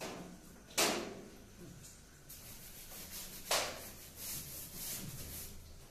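A cloth duster wiping chalk off a blackboard: light, hissy rubbing strokes, two of them sharper and louder, about a second in and again about two and a half seconds later.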